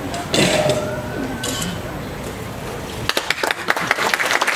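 Audience applauding, the clapping breaking out about three seconds in. Before it comes a short burst of noise about half a second in.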